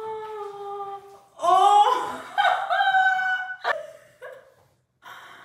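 A high voice holding a long drawn-out note, then breaking into loud laughing for about two seconds, ending with a click.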